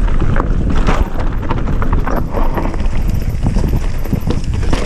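Transition Patrol full-suspension mountain bike rolling fast down a steep dirt trail: a continuous rumble of knobby tyres over dirt and stones, with irregular clattering knocks from the chain and frame on every bump.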